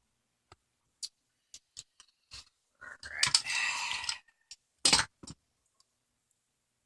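Scattered light clicks and a brief rustling scrape, then one sharper click about five seconds in: small tools and gear being handled and set down on a workbench while the camera is reframed.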